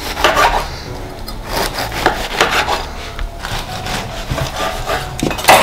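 A knife working through food on a wooden cutting board: a series of irregular rasping, sawing strokes, with a louder knock on the board near the end.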